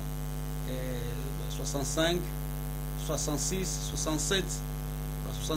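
Steady electrical mains hum with a stack of evenly spaced overtones, running under a man's voice speaking in short phrases.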